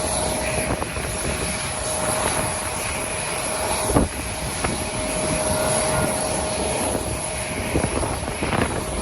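Jet airliner engines running with a steady whine, through gusty wind buffeting the microphone; a single knock about four seconds in.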